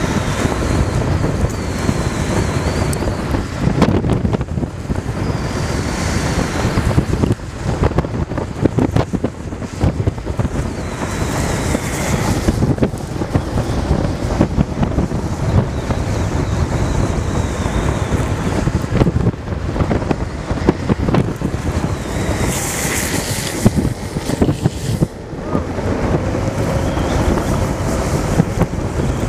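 Wind rushing over the microphone at downhill speed, mixed with the rumble of longboard wheels rolling on asphalt. A few times a brief, sharper high hiss rises over it.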